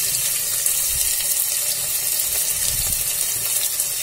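Hot oil sizzling steadily with a light crackle in an aluminium pressure cooker as chopped onions are tipped into it.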